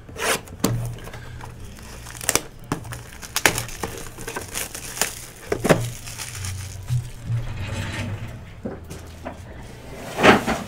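A foil pack of baseball trading cards being torn open and handled, the wrapper crinkling with irregular crackles and snaps, loudest near the end, over a steady low hum.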